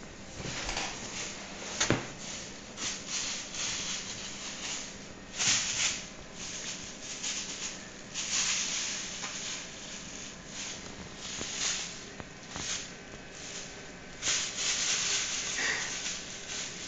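Thin plastic bag crinkling and rustling in irregular bursts as a kitten pounces on it and rolls in it, with a sharp tap about two seconds in.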